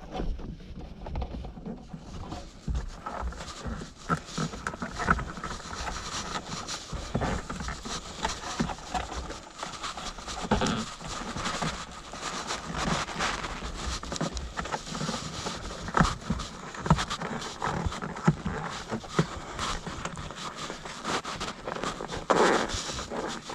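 Handling noise of wire being fed up behind a car's plastic interior trim: irregular scrapes, rustles and small knocks, with a louder scrape near the end.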